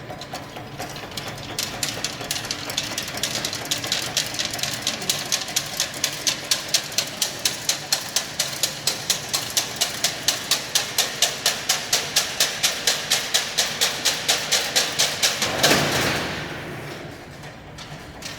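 Chain-link fence weaving machine running, with a steady mechanical clacking at about three to four strokes a second. Near the end the clacking gives way to a louder burst of noise that then fades.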